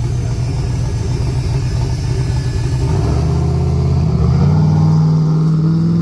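Turbocharged small-block Ford V8 drag car (a Fox-body Mustang) rumbling at the starting line. Its engine note builds about three seconds in, then jumps to a higher, steady pitch a little after four seconds as the car launches and runs hard away.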